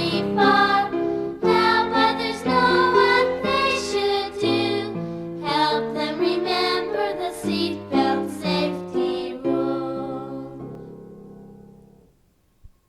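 Children's song music with a melody over accompaniment, dying away near the end into near silence.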